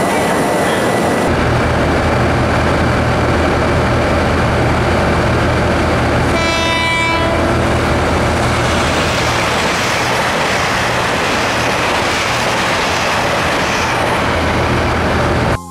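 Train running, a loud steady rumble and rush of noise, with the train horn sounding once for about a second near the middle.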